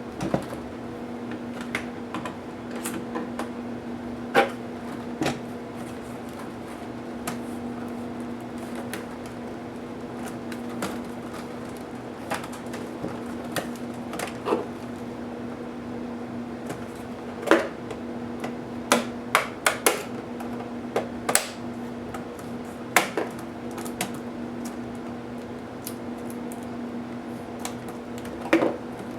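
Scattered sharp clicks and taps of small tools and plastic and metal laptop parts being handled during disassembly, loudest in a quick cluster about two-thirds of the way through. A steady hum runs underneath.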